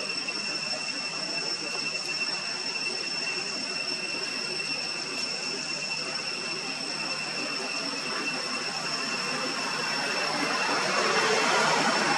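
Steady outdoor background noise with a constant high-pitched whine, getting a little louder about ten seconds in.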